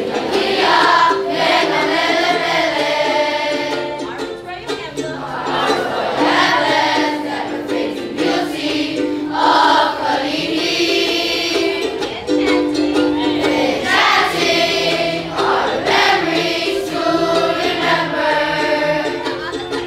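A group of students singing the school's alma mater together over instrumental accompaniment.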